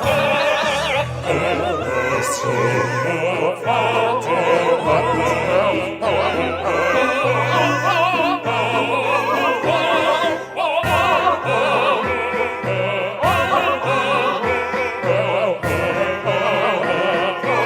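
Operatic singing with a wide vibrato over accompaniment with held bass notes that change every second or two.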